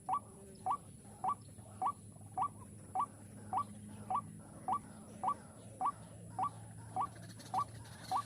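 White-breasted waterhen call used as a trapping lure: a short rising note repeated evenly, a little under twice a second.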